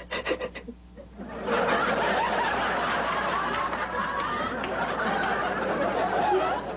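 Studio audience laughing: a few short bursts in the first second, then a big wave of crowd laughter about a second and a half in that holds for about five seconds and dies down near the end.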